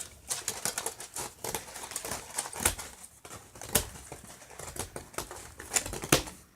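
Craft pieces being handled: irregular small taps, clicks and light rustling, with a few sharper knocks among them.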